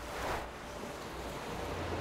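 Ocean waves washing, a soft swell of surf a few tenths of a second in over a low steady rumble.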